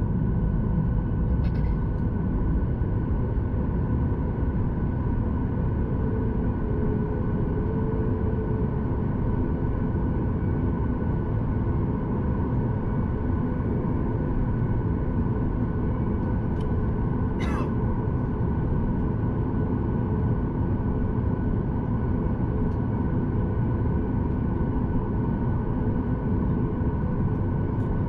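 Steady cabin noise inside a Boeing 737 MAX 8: an even low rumble with a few steady engine tones over it, and one brief high-pitched sound a little past the middle.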